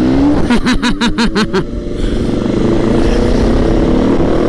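Sport motorcycle engine running under way with wind rushing over the microphone; about half a second in, a quick stutter of about seven sharp pulses lasting about a second, then the steady engine and wind again.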